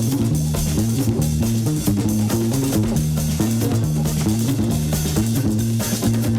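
Breakbeat dance music with a busy, stepping bass line under steady drums.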